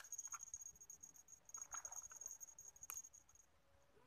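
Faint, high-pitched insect trill, rapidly pulsing, that stops about three and a half seconds in, with a few light clicks and rustles, one sharper click near the end.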